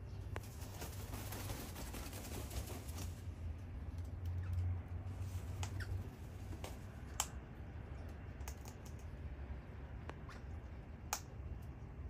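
Scattered sharp clicks and light taps from king parrots' beaks and feet, a few of them louder, over a low rumble that swells about four to five seconds in.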